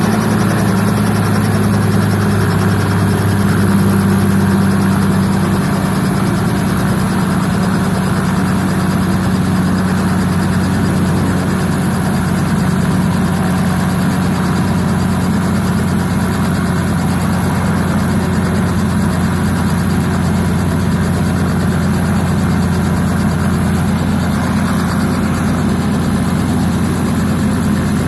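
Robinson R44 helicopter's Lycoming 540 six-cylinder piston engine and rotor running steadily while the aircraft sits on the ground, a constant low hum with no change in pitch.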